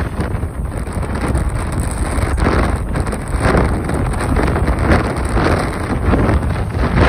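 Strong storm wind buffeting the microphone: a heavy, continuous low rumble with rushing gusts that swell and fade every second or so.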